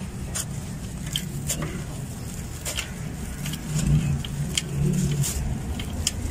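A crumbly sand-cement chunk being squeezed and broken apart by hand, with gritty crunching and many small sharp crackles as crumbs and sand fall into a metal basin. The crunching is loudest a little before the middle, under a steady low rumble.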